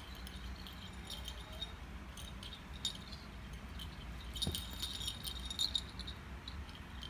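Small metal bell on a cat's collar jingling in irregular bursts as two cats wrestle, busiest and loudest a little past halfway, with a low thump about halfway through.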